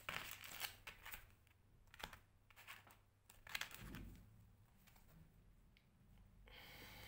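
A deck of tarot cards shuffled by hand, faint: quick soft flicks and slaps of the cards in the first second or so, then a few scattered taps as the shuffling slows.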